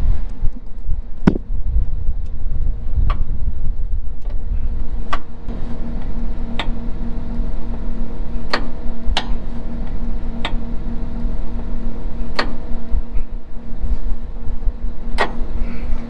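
Tractor engine idling steadily while the grain cart's sump clean-out door is wound shut with a hand-crank wheel. Sharp metallic clicks from the door mechanism come unevenly, one every second or two.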